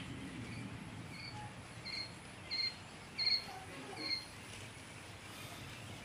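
Quail chicks peeping: about five short, high chirps at an even pace over a faint low background noise.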